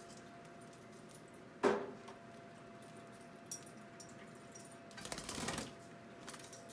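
Pet budgies in their cage: one short, sharp call or knock about a second and a half in, scattered light clicks, and a longer rustling burst around five seconds, over a faint steady hum.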